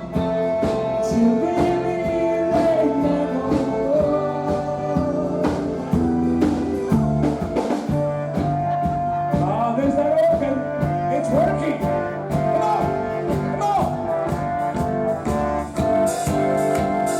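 Live rock band playing, with a steady drum beat under long held melody notes.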